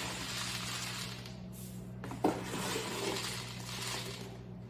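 Dry quick oats pouring out of a cardboard canister into a half-cup measure: a rushing, rustling hiss in two pours, with a light knock about two seconds in.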